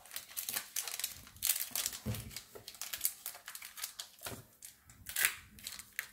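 Pokémon trading cards being handled and laid down on a desk: an irregular run of light papery flicks, slides and taps, with a couple of sharper slaps.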